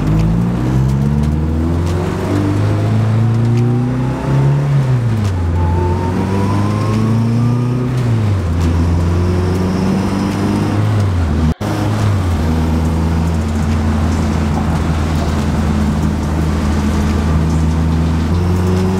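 Honda Civic EG heard from inside the cabin, engine revving up and dropping back a few times, then holding a steady drone. A thin transmission whine climbs in pitch with road speed, loud inside because stiff race engine mounts pass the engine and gearbox noise into the car.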